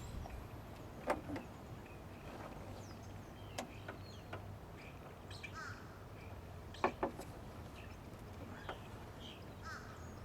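Scattered sharp clicks and light knocks of hand work on a car door's side mirror mount, a double click about seven seconds in the loudest, over a steady low hum, with a few short bird chirps.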